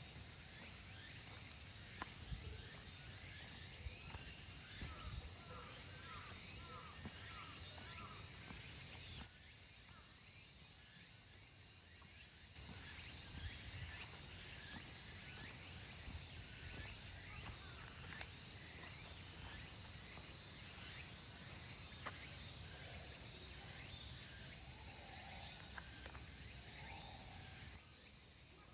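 Steady high-pitched chorus of insects singing in the park trees, briefly quieter for about three seconds a third of the way through, with a few faint bird chirps.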